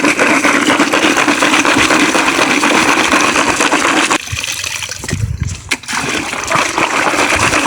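Water running and splashing steadily, as when clams are rinsed in a basin. It drops away about four seconds in and starts again about two seconds later.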